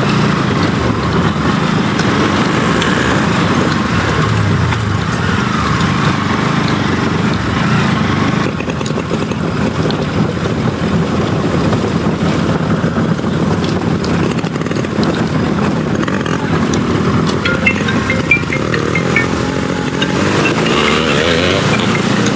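Motorcycle engine running steadily while riding over a rough, rocky, muddy track, with a few light clicks near the end.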